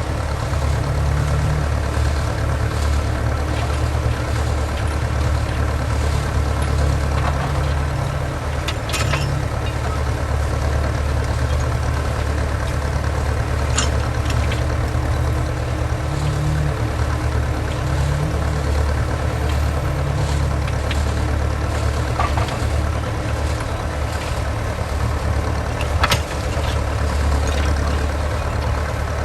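An engine running steadily, a low even drone, with a few brief sharp clicks over it.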